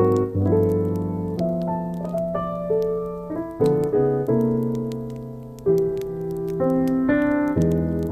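Slow piano music, single notes and held chords ringing and fading, with faint irregular crackles of a wood fire beneath it.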